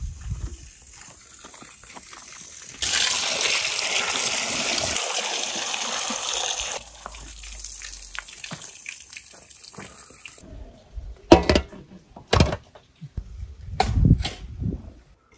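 Water pouring and gushing from an outdoor spout as figs are rinsed in a metal basin. It cuts in suddenly and loud, drops sharply a few seconds later and runs on more quietly, then stops. A few sharp knocks follow near the end.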